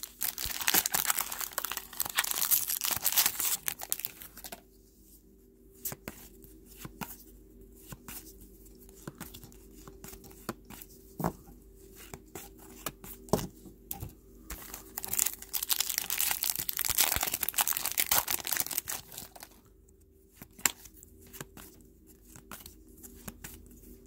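A foil trading-card pack wrapper being torn open and crinkled, followed by light clicks of cards being flicked through one at a time. About halfway through there is a second stretch of crinkling wrapper, then more card flicking.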